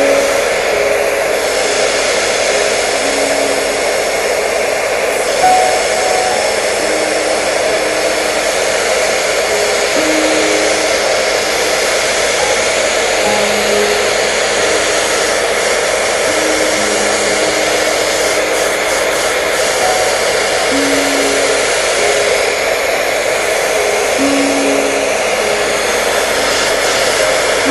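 Hair dryer blowing steadily with an even rushing hiss. A slow, simple melody of single notes plays softly over it.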